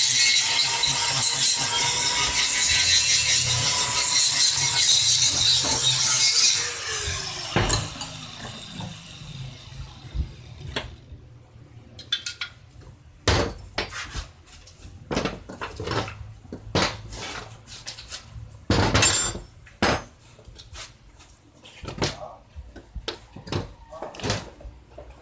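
Angle grinder grinding the steel face of a Jeep brake shoe clamped in a vise, switched off about six and a half seconds in and winding down with a falling whine. After that, scattered clinks and knocks of steel brake shoes and tools being handled on a metal workbench.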